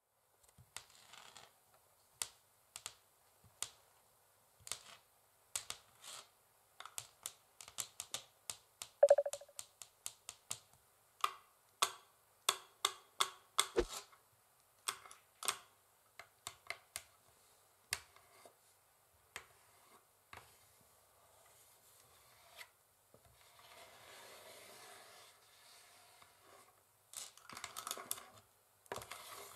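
Long fingernails tapping on a wooden chessboard in irregular sharp clicks, quickening into rapid runs, with one louder tap that rings briefly about nine seconds in. Later comes a stretch of steady nail scratching across the wood.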